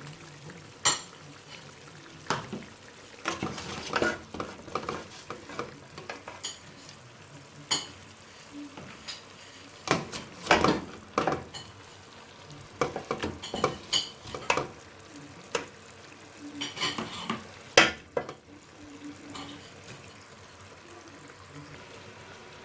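A metal spoon scraping and clinking irregularly against a cooking pot as pieces of cooked meat are lifted out, over a faint steady sizzle from the pot.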